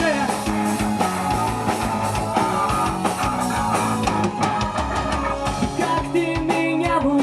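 Rock music with electric guitar and drum kit, an instrumental passage between sung verses.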